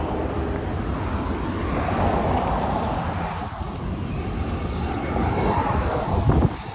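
Steady rushing engine noise with a low rumble that swells and fades, like a vehicle or plane passing at a distance.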